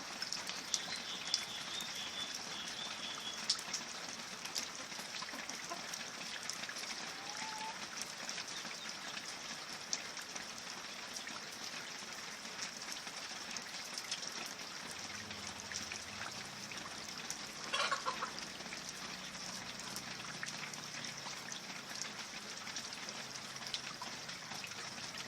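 Steady rain falling, an even hiss with scattered drops, and a short run of bird chirps about a second in.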